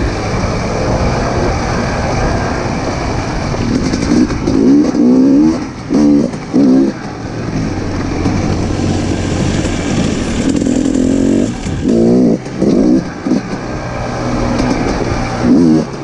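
Dirt bike engine running under throttle while riding, its pitch climbing as it revs up, with short breaks in the sound about six seconds in and again about twelve seconds in.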